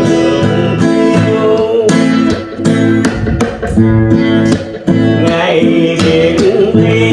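Acoustic guitar strummed in a steady rhythm of chords, with a man's singing voice coming in about five seconds in.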